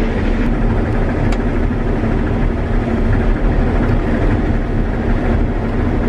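Claas Lexion 740 combine running steadily while harvesting soybeans, heard from inside the cab: a loud, even engine and machine hum with a low drone.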